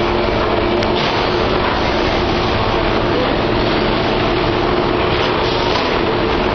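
Brick-plant stacking and conveyor machinery running: a steady, even mechanical noise with a faint hum beneath it.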